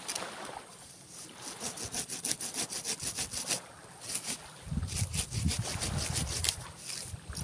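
Hand saw cutting through santigi (Pemphis acidula) wood in fast, even back-and-forth strokes, in two runs with a short pause between.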